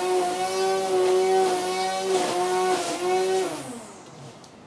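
A motor running at a steady pitch, then winding down with falling pitch and stopping about three and a half seconds in.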